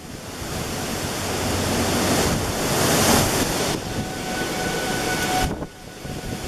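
Gusty storm wind rushing over the microphone, swelling about midway through. In the second half a faint, steady tone of a distant tornado warning siren sounding its alert rises above the wind, and then the sound drops out abruptly.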